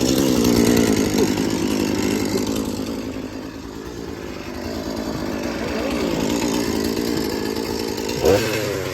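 Gas chainsaw engine running, revving up and down; it eases off a few seconds in, then picks up again.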